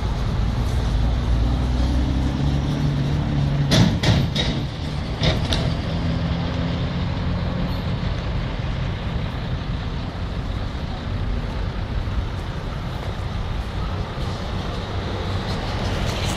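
Diesel engines of a line of army cargo trucks running, a steady low drone that is strongest in the first few seconds. A few short sharp bursts about four to five seconds in.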